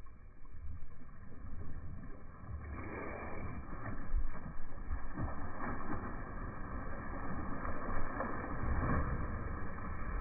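Wind and sea water splashing around a hooked marlin leaping at the surface, dull and muffled, getting louder about three seconds in.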